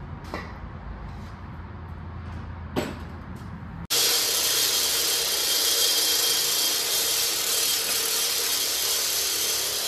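A power tool starts abruptly about four seconds in and runs steadily with a loud, hissing whir while cutting through a truck's transmission lines. Before it there is a low rumble and a single knock.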